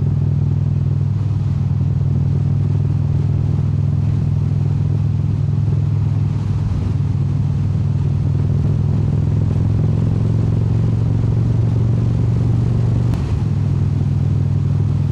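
Indian Super Chief Limited's V-twin engine running steadily at cruising speed, with wind and road noise. The engine note dips briefly near the end, then carries on.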